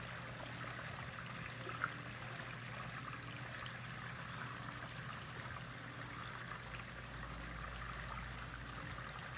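Water gurgling and trickling steadily through a 2-inch PVC pipe, over a steady low hum, with one sharp click about two seconds in.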